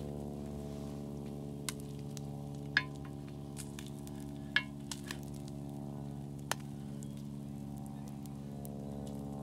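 A steady low hum with a few sharp metal clinks and clanks, the loudest about three and four and a half seconds in, as a small frying pan is handled and set down on a hot flat-top griddle.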